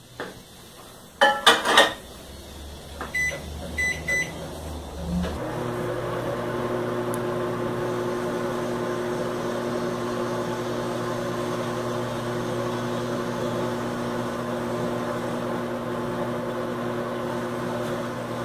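Microwave oven being started: the door clicks shut about a second in, the keypad beeps a few times, then the oven runs with a steady hum as it heats an apple filled with honey.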